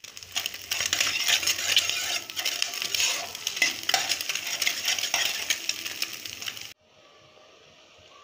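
Eggs sizzling in hot oil as a spatula scrapes and stirs them around a non-stick pan, with many small scraping clicks over the frying hiss. It cuts off suddenly about six and a half seconds in, leaving a faint steady hiss of noodles simmering in water.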